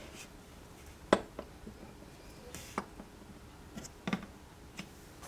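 A few light, sharp clicks and taps of small plastic toy figures being handled and set down on a table, the loudest about a second in.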